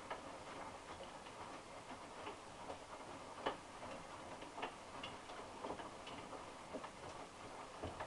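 Hotpoint NSWM 843C front-loading washing machine turning a wet load during its final rinse: faint swishing with irregular light clicks, the sharpest about halfway through.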